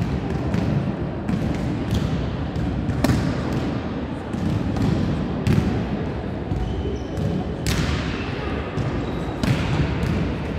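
Several volleyballs being passed, hit and bouncing on the court floor: irregular sharp slaps and thuds that echo around a large sports hall, over players' chatter.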